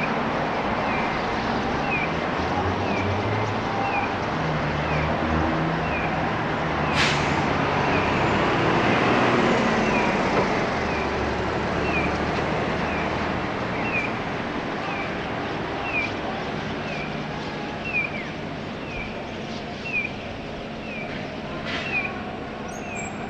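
Road traffic running steadily, swelling for a few seconds as a vehicle passes, with engine hum underneath. Over it a short, high, falling chirp repeats very evenly, about once a second.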